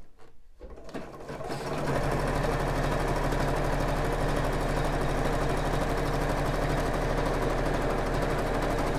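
Juki domestic sewing machine stitching elastic onto a bra band: it picks up speed over the first couple of seconds, runs at a steady fast stitch, then stops at the end.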